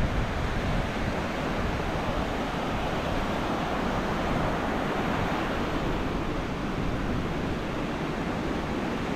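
Steady rush of sea surf with wind on the microphone, swelling slightly about halfway through.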